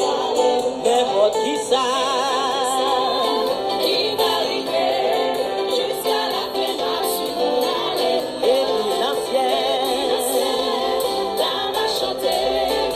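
Music: a song with a singing voice. The voice holds a wavering note with vibrato about two seconds in.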